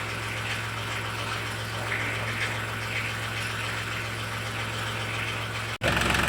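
Crown CT 36036 12 V mini air compressor running with a steady hum and hiss. Near the end the sound cuts out for an instant and comes back louder, with a deeper hum.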